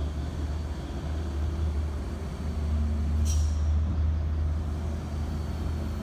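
Low, steady engine rumble of heavy trucks approaching on the downhill bend, with one short sharp air-brake hiss about three seconds in.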